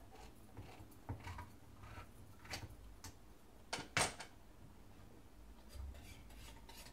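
Hand-held can opener working round a metal tin of coconut milk: scattered small metal clicks and scrapes, with one sharp, loudest click about four seconds in.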